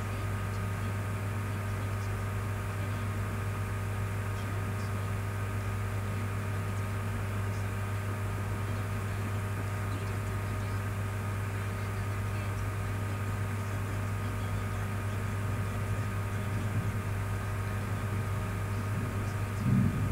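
Steady low electrical hum with a faint hiss and a few fixed higher tones, unchanging; a brief louder low sound comes just before the end.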